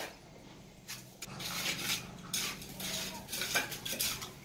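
Sand-and-cement mortar being scooped and spread by hand over a concrete stair step: a run of soft, gritty scrapes that start about a second in.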